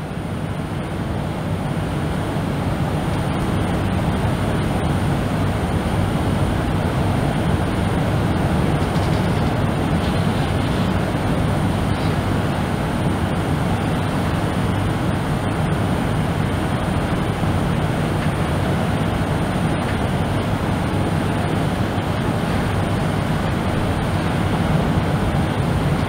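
Steady, deep brown noise: an even bass-heavy rumble with no pauses or swells, fading in over the first couple of seconds. It is presented as beach surf heard muffled from inside a vehicle.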